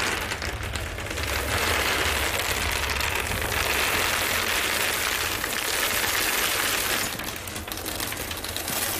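Dense, continuous crackling and rustling as hands dig into the alien body's cavity during the autopsy, with a steady low hum underneath.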